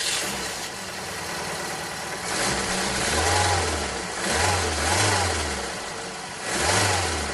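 Jeep engine revving up and easing off about four times while driving, under a steady hiss of wind and road noise.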